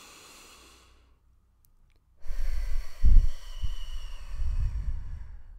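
A woman taking a slow deep breath: a soft inhale in the first second, then, after a short pause, a long audible exhale like a sigh from about two seconds in, loudest at its start and fading toward the end.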